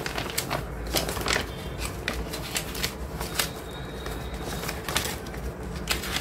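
Paper instruction booklet being handled and its pages turned over: irregular rustling, flapping and crinkling of paper.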